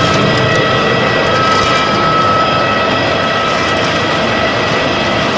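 Wood sawdust pellet press machine running steadily: a loud, even mechanical din with several steady whining tones over it.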